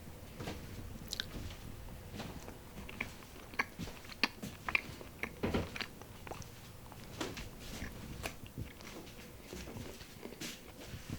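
Close-up bread eating: biting and chewing with irregular, crunchy clicks, busiest around the middle.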